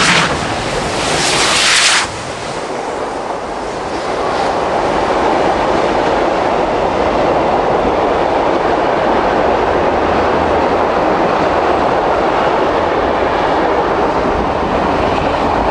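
Steam locomotives running side by side pass close by, with a loud, hissing exhaust for about the first two seconds. This gives way to the steady rolling noise of their passenger carriages running past on parallel tracks.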